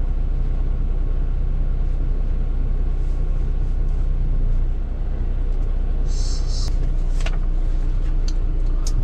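Semi-truck's diesel engine idling steadily, a continuous low rumble, with a short high-pitched sound about six seconds in.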